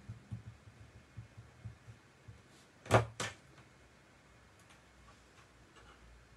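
Two sharp knocks close together about three seconds in, with soft low thuds before them and a few faint ticks after, from craft tools and paper being handled on a desk.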